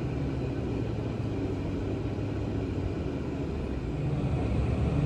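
Subway train running, a steady low rumble that gets louder near the end.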